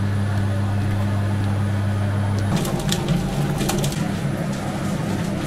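Steady low hum of bakery kitchen machinery. About halfway through it changes to a wavering, uneven hum with a few light clicks and knocks.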